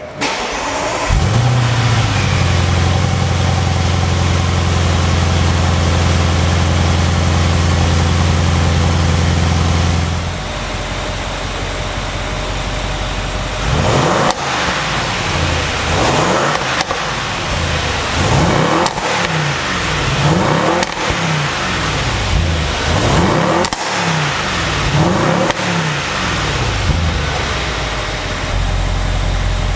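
A 2016 Audi RS7's twin-turbo V8 through its factory exhaust in Comfort mode. After a brief rise in revs near the start it holds a steady fast idle for about nine seconds, then drops to a lower idle, and from about halfway through it is blipped in a string of short revs, one every second or two.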